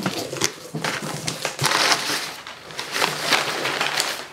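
Crumpled brown kraft packing paper crinkling and rustling as it is pulled out of a cardboard shipping box, a continuous crackle with many sharp crinkles.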